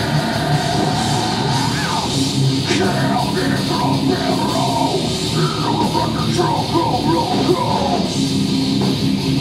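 Heavy metal band playing live: distorted electric guitars and drums, with a shouted vocal over the middle of the passage.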